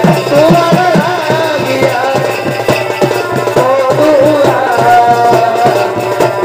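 Purulia Chhau dance music: dhol drums beating a fast, steady rhythm under a high melody line that wavers and bends in pitch.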